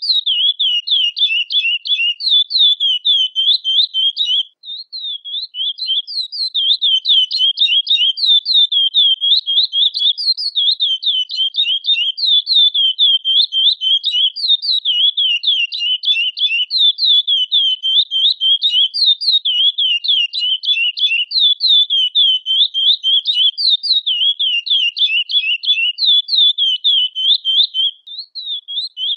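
Curió (chestnut-bellied seed finch, Sporophila angolensis) calling: a long, rapid, unbroken run of high chirps, with a short pause about four seconds in and another near the end.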